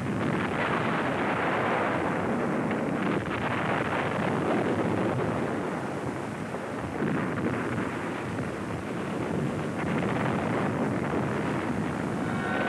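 Battle sound effects: a steady, dense rumbling roar without distinct separate blasts, dipping a little around the middle.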